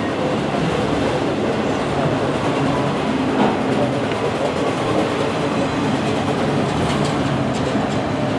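Autorack freight cars rolling past close by: a steady rumble of steel wheels on the rails.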